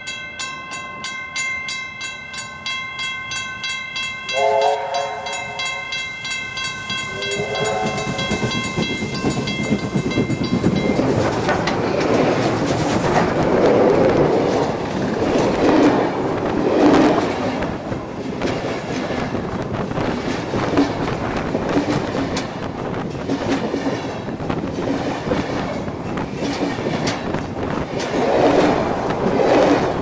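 Level crossing bells ringing with even, repeated strikes. Two blasts of a steam locomotive's whistle sound about 4 and 7 seconds in. About a third of the way through the bells stop, and steam locomotives 3526 and 3642 pass close by with a loud rush of steam and wheels clattering over the rail joints.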